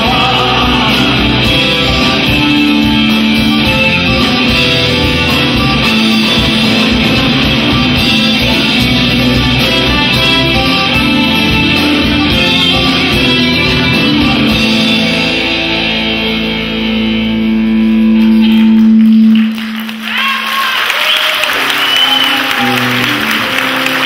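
Live band with accordion, electric and acoustic guitars, bass guitar and drums playing, building to a long held final chord that stops about four-fifths of the way in. Audience applause follows.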